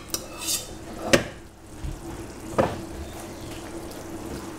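A metal spoon scooping cooked macaroni from one stainless steel pot into another, knocking sharply on the pots a few times, with a brief scrape between the knocks. A steady low hum runs underneath.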